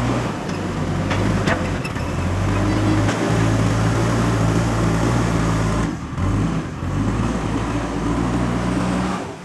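Heavy diesel engine of a JCB backhoe loader running under load, its low drone shifting in pitch as the revs change, with a brief drop about six seconds in.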